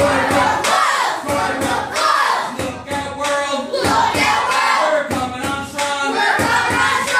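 A group of young children singing together loudly, with sharp percussive hits recurring through the singing.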